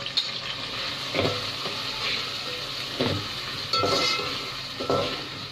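Sliced onions sizzling in hot oil in a pot on a gas stove as they start to fry, with a metal spoon stirring them and knocking against the pot about five times.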